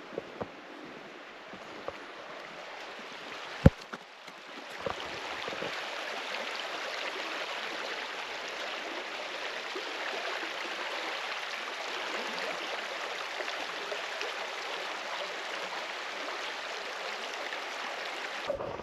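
Creek water running steadily, getting louder about four and a half seconds in and then holding even. A single sharp click just before it swells.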